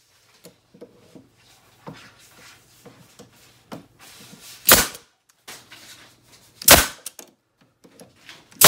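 Pneumatic nail gun firing three times, about two seconds apart, each a sharp crack as it drives a finishing nail into a wooden spacer block.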